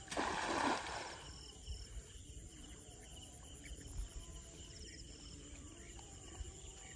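A hand-thrown cast net hits the water with a short splash within the first second, the loudest sound here. After it, insects keep up repeated short high trills.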